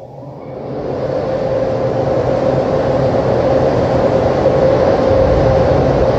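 Razor Edge automatic car wash machinery starting up, heard from inside the car: a motor comes on, builds over a second or so and settles into a loud, steady running with a constant tone and a low hum.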